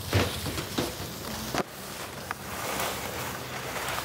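Skis sliding across a rail and scraping over snow, a steady hiss broken by a few sharp knocks as the skis hit and leave the rail.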